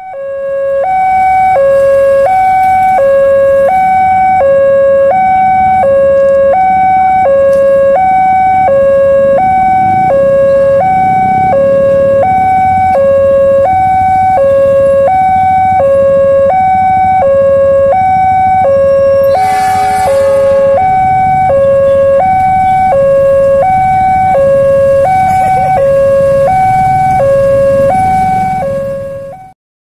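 Level-crossing warning alarm sounding a steady two-tone hi-lo signal, swapping tones about every half second, over the low rumble of an approaching CC206 diesel locomotive. A short, harsher burst cuts in about twenty seconds in.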